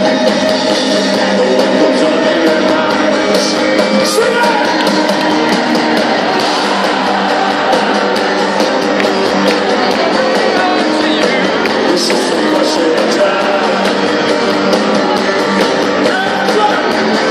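A live synth-rock band plays loud through an arena PA, with electric guitar and singing. It is recorded from the crowd on a phone, so it sounds thin, with little bass.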